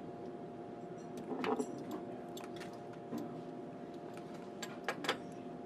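Light clicks and taps of wire leads being plugged into output terminals on a robot controller's I/O, over a steady electrical hum; two sharper clicks close together about five seconds in.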